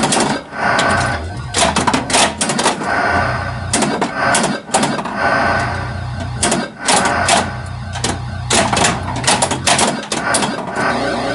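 1982 Bally Vector pinball machine in play: irregular sharp mechanical clacks of its flippers, solenoids and ball over its electronic sound effects.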